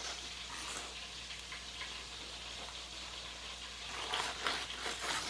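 Steady low sizzle of ribs frying slowly in a pan, with a few brief rustles about four seconds in as a paper towel is rubbed over the top of a cornbread in a cast-iron skillet.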